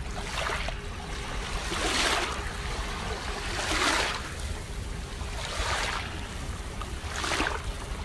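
Small waves lapping onto a sandy shore in shallow water, washing in about every two seconds in five gentle surges over a low steady rumble.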